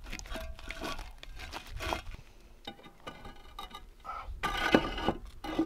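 Hollow concrete blocks knocking and scraping against each other as they are set into place on a block wall by gloved hands, with a louder grating scrape about three-quarters of the way through.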